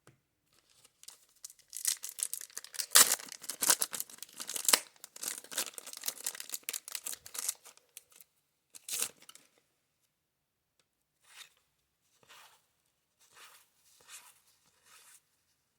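Wax-paper wrapper of a baseball card pack torn open and crinkled for several seconds, with one more crackle shortly after, then a few softer scattered rustles.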